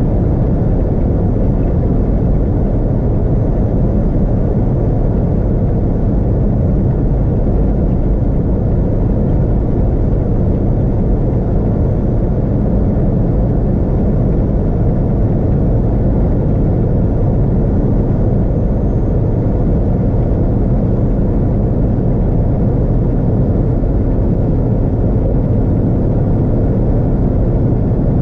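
A car driving at steady freeway speed: an even, low rumble of tyre and wind noise that does not change.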